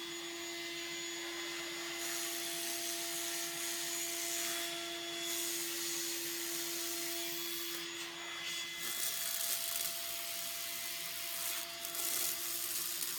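An electric fan's motor running with a steady whine, having just spun up, over a hissing, crackling buzz from a Tesla coil's high-voltage spark gap firing. The whine weakens about nine seconds in.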